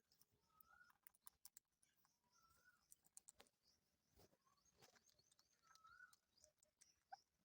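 Faint scattered clicks of an Indian ringneck parrot eating, its beak working on food, with a short faint bird chirp recurring about every two seconds.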